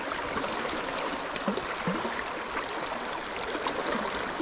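Shallow river running over a stony bed: a steady rush of water, with a few small ticks and one sharper tick about one and a half seconds in.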